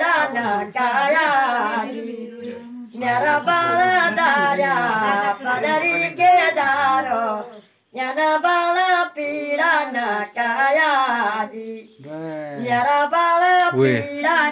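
A woman singing a melody without accompaniment, in long wavering phrases with short breaks between them.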